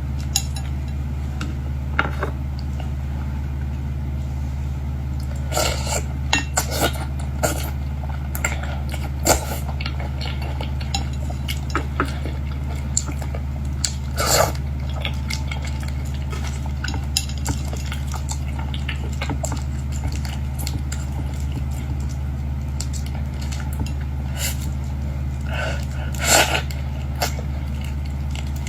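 Scattered clinks and clicks of dishes and utensils while eating, with a few louder knocks, over a steady low hum.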